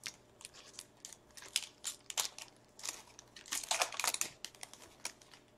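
A shiny foil trading-card pack wrapper torn open and crinkled by gloved hands: a run of short crackling rips, thickest a little past halfway.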